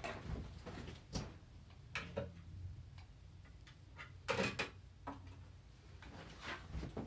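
Irregular clicks, taps and light rustles from handling small plastic gadgets and their packaging, with the loudest cluster of clicks about four seconds in.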